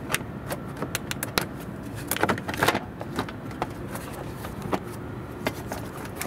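Clicks and knocks of a plastic radiator-support cover being worked loose and lifted off a Toyota RAV4, its clips releasing and the hard plastic clattering, loudest in a burst of rattling about two seconds in.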